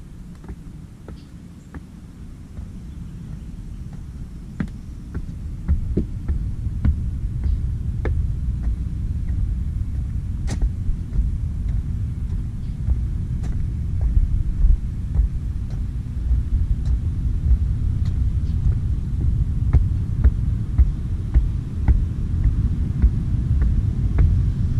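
Low rumble of wind buffeting the microphone, growing louder about five seconds in, with scattered footsteps knocking on wooden boardwalk steps.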